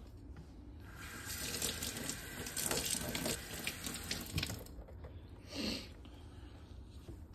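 Kitchen faucet running into a stainless steel sink as eyeglasses are rinsed under the stream. The water comes on about a second in, runs for nearly four seconds and is shut off, and a brief swish follows about a second later.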